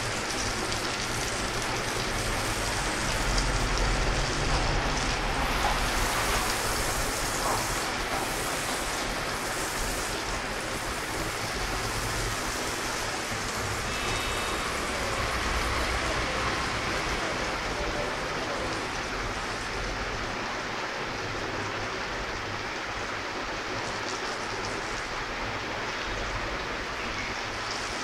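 Butter sizzling on a hot iron tawa as dabeli buns toast in it, a steady hiss and crackle throughout, with a low rumble of street noise underneath.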